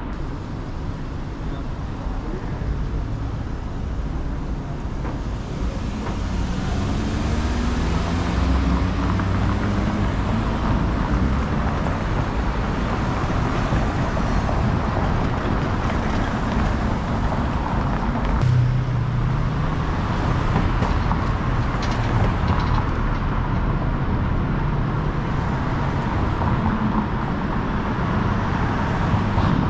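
City street traffic: cars and trucks passing in a steady rumble. A few seconds in one engine rises in pitch as it pulls away, and about two-thirds of the way through a louder vehicle engine comes in suddenly.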